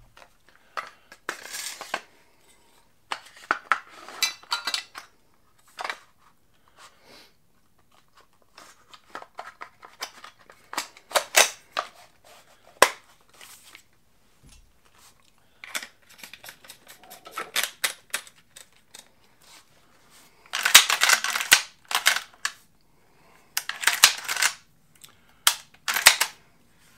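Metal parts of a Stoeger M3000 12-gauge semi-automatic shotgun clicking, sliding and clacking as the gun is reassembled by hand, with two longer, louder metallic rattles in the last third.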